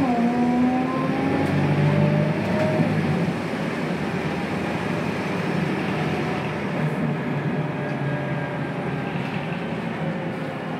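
Scania DC9 9-litre inline five-cylinder turbo diesel and ZF Ecomat automatic gearbox, heard from inside the bus under acceleration. The revs drop sharply at a gear change at the very start, then climb in a rising tone for about three seconds before easing off into a quieter, steadier run.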